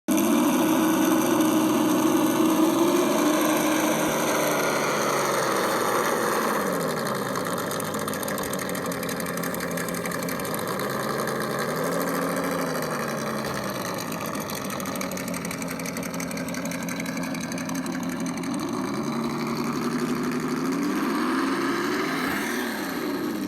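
An engine running, its pitch slowly rising and falling several times as its speed changes.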